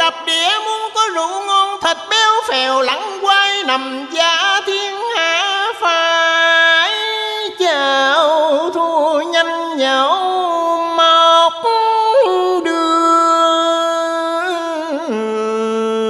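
A man singing into a microphone in Vietnamese cải lương style: a slow, ornamented line of sliding, wavering notes and long held tones. About fifteen seconds in he drops to a lower note and holds it steady.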